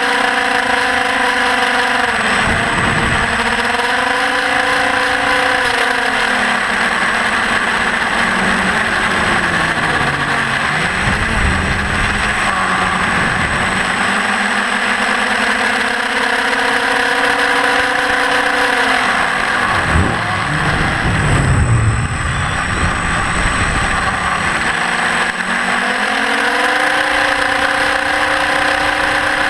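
Electric motor and propeller of a TBS Disco FPV flying wing in flight, a steady whine whose pitch falls and rises with the throttle. About three times the motor drops off briefly and a low wind rush comes through before the pitch climbs again.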